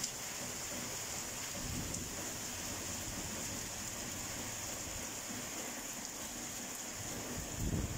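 Heavy rain pouring steadily on the ground and foliage during a thunderstorm, with brief low rumbles, the strongest near the end.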